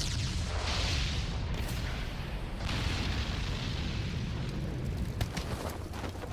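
Designed anime fight sound effects: a deep continuous rumble of explosions, with two rushing blasts about half a second and about three seconds in, and sharp crackles near the end.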